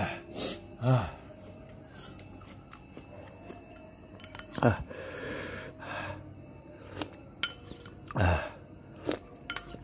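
Metal spoon clinking and scraping against a ceramic bowl while scooping chili broth, with several sharp clicks, interspersed with slurps and breaths from eating the spicy broth.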